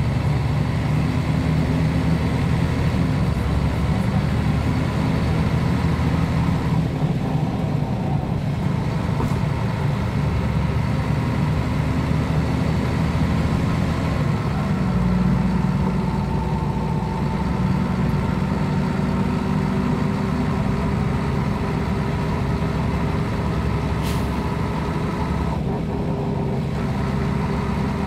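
Diesel engine of a 1993 Mercedes-Benz O 405 G articulated bus running steadily, its low hum lifting slightly in pitch about halfway through.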